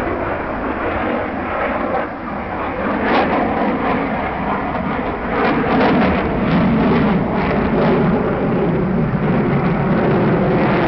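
F-22 Raptor fighter jet flying overhead, the jet noise of its twin Pratt & Whitney F119 turbofans a broad, continuous rush that grows louder about three seconds in and stays loud.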